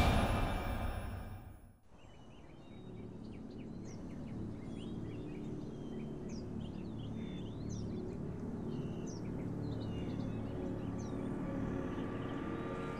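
A whoosh-like hit fades away over the first two seconds. After it comes an outdoor woodland ambience of small birds chirping over a low, steady drone.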